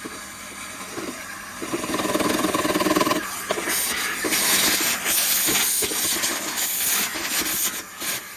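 Carpet-cleaning vacuum hose sucking air with a loud hiss that swells and fades. There is a rougher, louder stretch about two to three seconds in.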